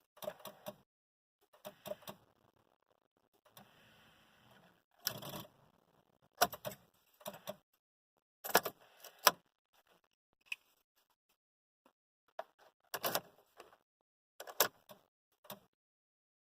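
Irregular clicks and rattles in short clusters about once a second, with no engine running.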